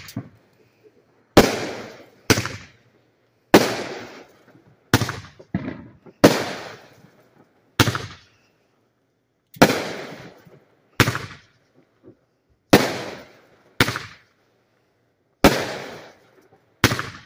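Consumer aerial fireworks going off shot after shot: about a dozen sharp bangs, one every second or two, each fading away over about a second.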